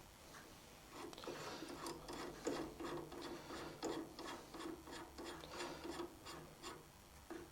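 Light irregular scraping and rubbing of small metal tools and parts being handled at a lathe set-up, two to three strokes a second.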